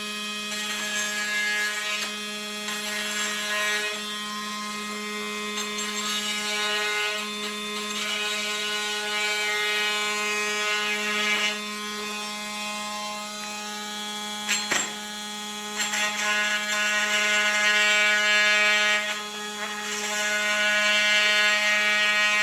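Oscillating multi-tool running continuously with a steady buzz, its blade notching aluminum tubing; it gets louder in stretches as the blade bites, with a sharp click about fifteen seconds in.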